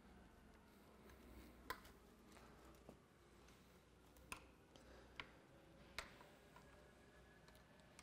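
Quiet room tone broken by four or five sharp single clicks spread over several seconds, from plastic zip ties and a wiring harness being handled and fastened to a metal riser.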